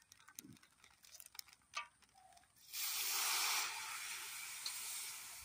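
Water poured from a steel bucket into a hot pot of fried chicken masala, hissing and sizzling as it hits the hot oil. The hiss starts suddenly a little over halfway through, is loudest for about a second, then slowly eases off. A few faint clicks come before it.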